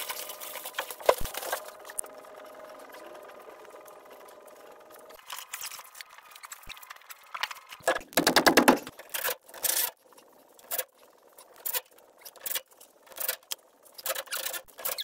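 DeWalt cordless impact driver run in short hammering bursts on nuts of a differential: one longer burst about eight seconds in, then quick bursts roughly once a second. A faint steady hum comes before it.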